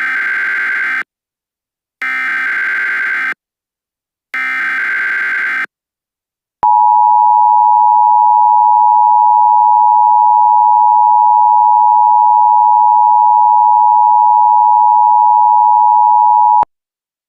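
Emergency Alert System broadcast alert opening: three short bursts of SAME header data, about a second each, then the steady two-tone EAS attention signal held for about ten seconds before cutting off.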